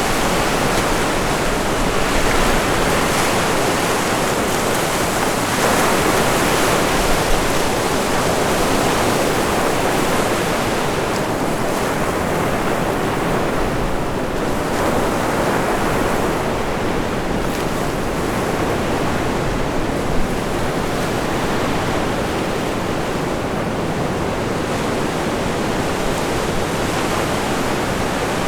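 Pacific Ocean surf breaking and washing on the beach, a continuous rush that swells and eases every several seconds. Wind gusts against the microphone.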